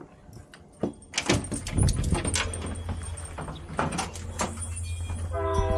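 Scattered clicks and knocks, then a steady low rumble from about two seconds in, and near the end a train horn starts, sounding a steady chord of several notes.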